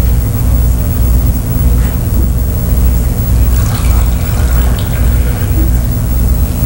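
A loud, low hum that pulses steadily about twice a second, with a few faint, brief higher sounds around the middle.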